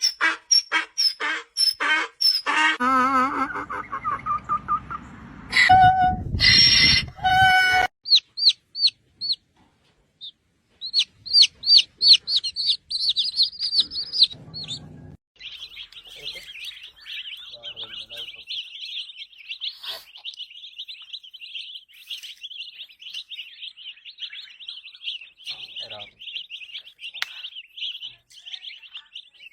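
A string of short, varied sound effects: quick repeated chirps, a warbling tone, a burst with a low rumble and a run of high upward sweeps. About halfway through it gives way to one long, rapid, high-pitched chirping trill.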